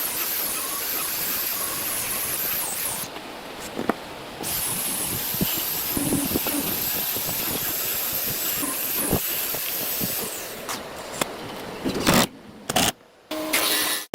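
A workshop power tool running with a steady hiss and a high thin whine, with scattered clicks and knocks. It cuts out abruptly a few times near the end.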